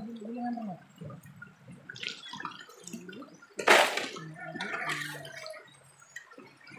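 Shallow river water running, with one loud splashing scrape about three and a half seconds in as a shovel scoops a load of gravel from the riverbed for the sluice box.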